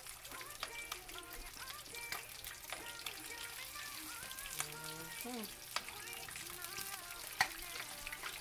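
Tilapia sizzling and crackling in hot oil in a stainless steel frying pan while a slotted metal spatula turns the fish, with scattered sharp clicks of metal on the pan, the loudest about seven seconds in.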